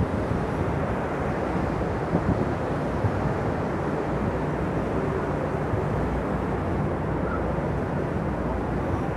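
Passenger riverboat under way: a steady low engine hum under the rush of water churned along the hull and in the wake.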